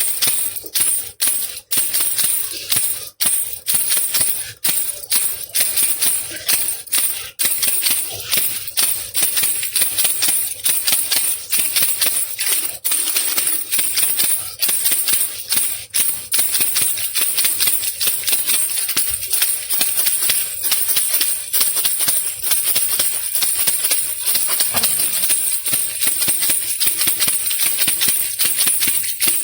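Baby rattle (khulkhula) shaken steadily, its beads rattling in a high, crisp hiss of clicks. For the first several seconds it comes in separate shakes with short gaps, then turns into fast, nearly continuous shaking.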